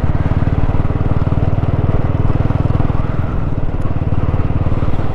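Motorcycle engine running at a steady speed while riding on a dirt road, its note made of rapid, even pulses.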